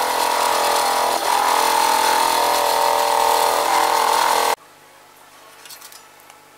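Wood lathe spinning a homemade sandpaper drum sander with a board pressed against it: a steady high whine over the hiss of sanding. It cuts off abruptly about four and a half seconds in, leaving only a faint background.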